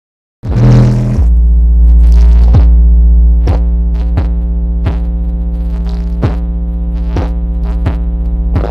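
Electronic music played loud through a large PA sound system under test: a heavy held deep bass with steady synth tones and sharp drum hits at uneven intervals. It starts suddenly about half a second in.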